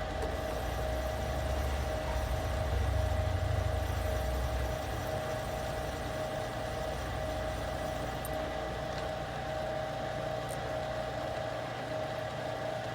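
Metal lathe running steadily while turning a brass bushing: a constant motor hum with a low rumble that swells for a few seconds early in the cut.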